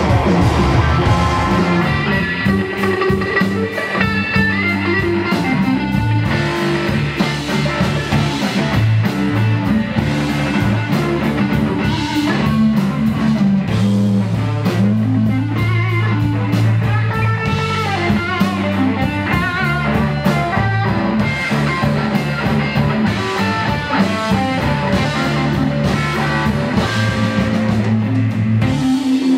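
A guitar, bass and drums trio playing rock music, the electric guitar to the fore over electric bass and a drum kit keeping a steady beat.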